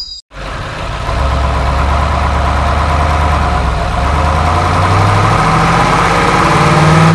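Truck engine sound idling steadily, rising slightly in pitch near the end. The sound is laid over the pictures: the trucks on screen are toys.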